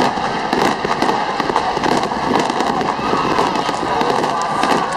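Fireworks display: a dense, continuous stream of crackling pops and bangs from many shells bursting in quick succession.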